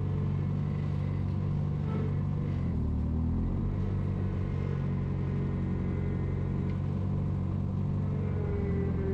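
Engine of a small loader machine running steadily, its speed dipping and then recovering about three seconds in.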